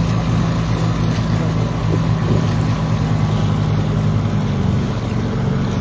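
Engine of a motorised wooden river boat running steadily under way, a low drone with the rush of water and wind over it; its note eases slightly about four and a half seconds in.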